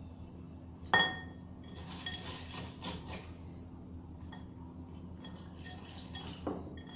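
Kitchen dishware and a utensil clinking: one sharp, ringing clink about a second in, then a run of lighter clinks and taps, and another knock near the end, as the macaroni bowl is handled while water and salt are added.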